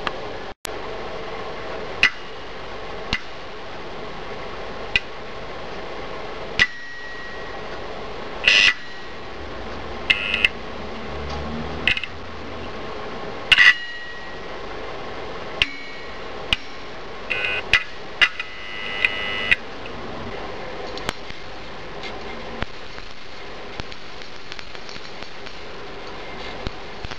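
Hands working wires onto an opened computer hard drive: scattered sharp clicks and snaps, with a brief buzz about 18 seconds in, over a steady hum.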